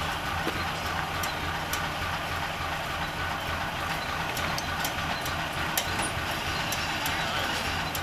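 A crane's diesel engine idling steadily, a low, even hum, with faint light clicks here and there.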